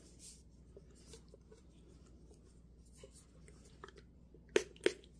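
Faint handling of a plastic bottle, then two quick sharp pumps of a Pink body mist spray bottle close together near the end.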